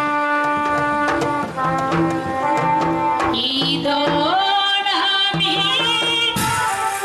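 Jatra folk-theatre ensemble music: tabla beats under steady held notes, with a high wavering melody line entering about three seconds in.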